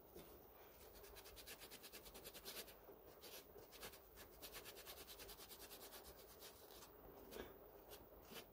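Faint, rapid back-and-forth scrubbing of a small chrome lathe handle part with a green abrasive scouring pad.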